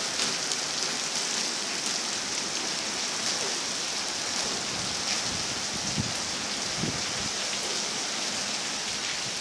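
Steady rainfall, a constant hiss of rain with scattered drops pattering on surfaces.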